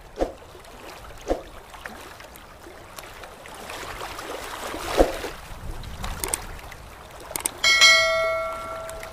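Splashing water with a few separate drop-like plops. Near the end come two quick clicks and then a bright bell chime that rings for about a second and a half: the stock sound effect of a subscribe-button and notification-bell animation.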